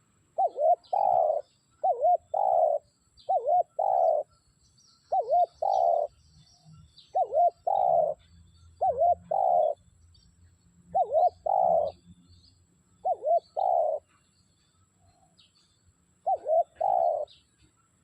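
Spotted dove cooing: nine phrases, each two quick clipped notes followed by a longer, fuller coo, repeated every second or two.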